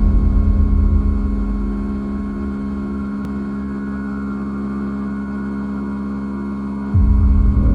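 A deep, steady rumble with a sustained hum of several steady tones over it. The rumble eases after about a second and hits hard again near the end.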